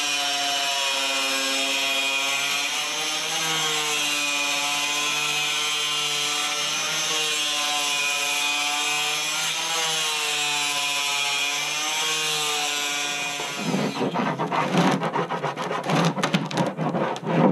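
Compact circular saw, blade set shallow, cutting through a plastic barrel: a steady motor whine whose pitch drifts slowly up and down as the load changes. About three-quarters of the way through it gives way to rapid, uneven strokes of a hand scraper shaving burrs off the cut plastic edge.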